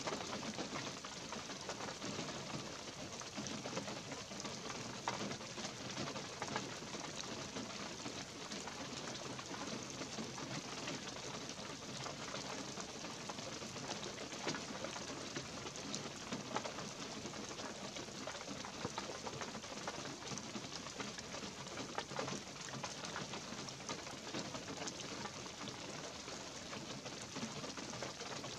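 Light rain falling in a pine woodland: a steady hiss with scattered drip ticks throughout.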